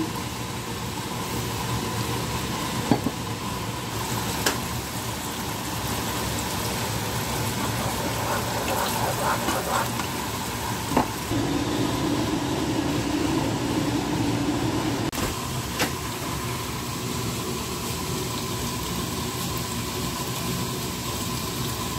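Steady stove-top cooking noise as a thin mixture simmers in a wok, broken by a few sharp knocks of a metal ladle against the pan. A low hum sounds for a few seconds around the middle.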